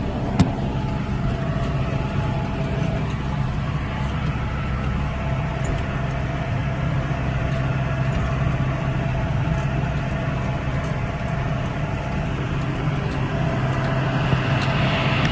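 John Deere 6110 tractor running steadily under load, pulling a hay baler, with a sharp click about half a second in.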